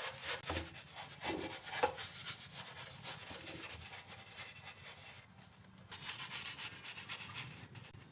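Stiff-bristle brush scrubbing the car's inner wheel-arch panel in rapid back-and-forth strokes, with a short pause about five seconds in before scrubbing resumes.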